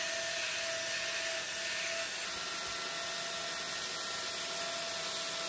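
Angle grinder with a hoof-trimming disc grinding a cow's hoof horn: a steady hissing grind with a faint whine from the motor.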